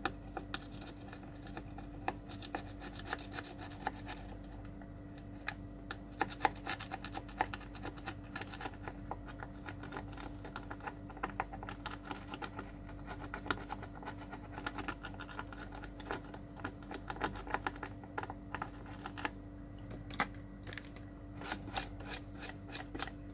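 Small hand tools clicking and scratching on a circuit board as tiny components are worked on, in quick irregular ticks over a steady low hum.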